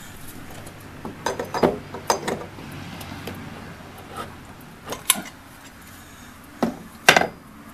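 Hammer tapping a putty knife into a joint of a wooden window sash: a run of sharp knocks, mostly in quick pairs, with the loudest near the end.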